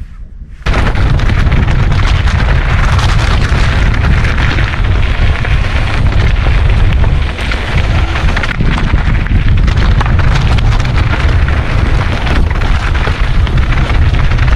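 Strong wind buffeting a GoPro's microphone: a loud, steady low rumble and rush that starts suddenly about a second in.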